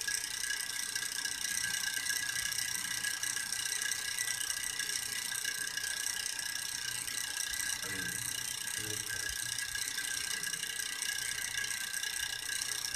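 Steady high-pitched buzzing background noise with no speech, unchanged throughout, and a faint low sound about eight seconds in.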